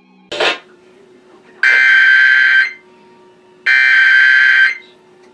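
Emergency Alert System SAME data header: two bursts of raspy, buzzing digital tones, each about a second long with a second's gap between, preceded by a brief burst of noise. The bursts are the coded start of a National Periodic Test alert.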